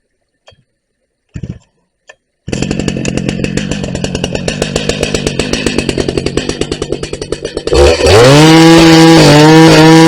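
Two-stroke Husqvarna 380 CD chainsaw starting after a few small clicks, idling with a pulsing beat, then revved up to a loud, steady high-speed run about eight seconds in.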